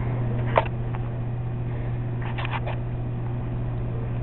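Steady low electrical hum, with one sharp click about half a second in and three or four quick soft taps around two and a half seconds.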